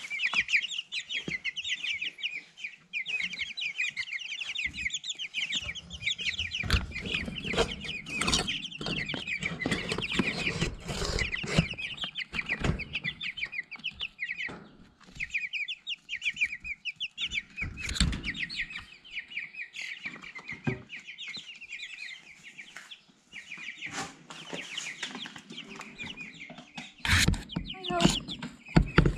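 A brooder of young chicks, Cornish Cross broiler chicks among them, peeping constantly in rapid high chirps. Scattered knocks and bumps come through, with a loud pair near the end.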